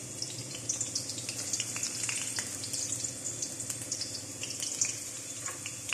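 Chopped onion and garlic sizzling in hot cooking oil in a wok: a steady high hiss with scattered small crackles.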